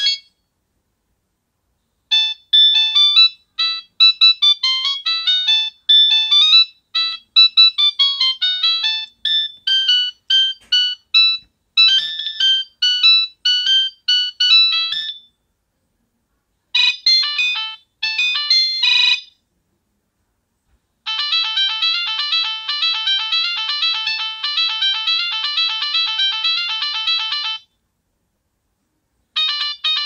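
Nokia 3585i's built-in speaker playing previews of several preloaded ringtones one after another, each a quick, high-pitched electronic melody. The tones stop and start with silent gaps of a second or two as the selection moves down the list.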